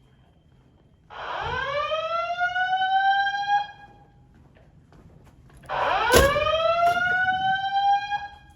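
Simplex 2001-8005 fire alarm system sounding a slow whoop evacuation tone: two whoops, each rising quickly and levelling off over about two and a half seconds, with a pause of about two seconds between them. A brief knock comes just after the second whoop starts.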